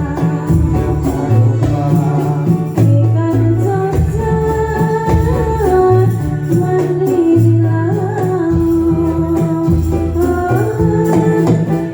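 Dolalak dance music: a voice singing a held, wavering melody over steady low drum beats and hand percussion.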